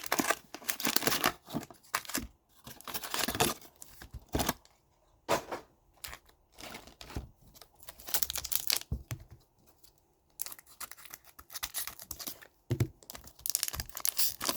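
Plastic and foil packaging of a hockey trading-card box and its packs being torn open and crinkled by hand, in irregular bursts with short pauses.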